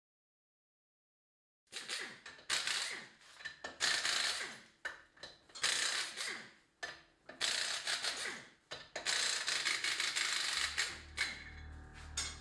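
Pneumatic impact wrench rattling in a series of short bursts, spinning off a car's wheel lug nuts. A low hum comes in near the end.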